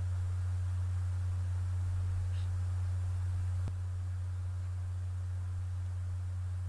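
Steady low electrical hum, with a faint click about three and a half seconds in, after which the hum is a little quieter.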